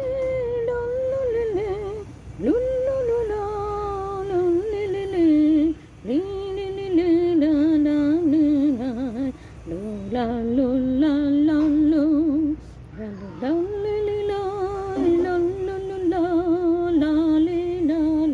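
A woman's voice singing a slow, unaccompanied melody in long phrases of a few seconds each, with held notes and vibrato and short breaks for breath between phrases.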